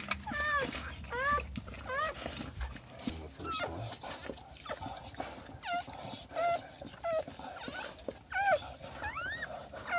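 Newborn Brittany puppies crying: about a dozen short, high squeals, each bending up or down in pitch, coming once or twice a second with small gaps.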